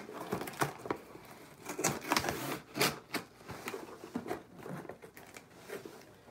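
A package being opened by hand: packaging crinkling, rustling and tearing in irregular short spells.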